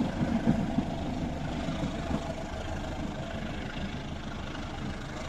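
Passenger train's rear carriages rolling away, the clatter of wheels on the rails fading over the first second or so into a steady low rumble.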